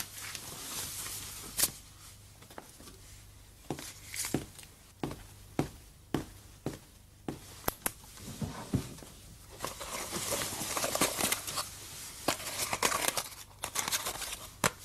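Quiet handling sounds: soft rustling of cloth or bedding with scattered light clicks and knocks, the rustling thickening for a few seconds near the end.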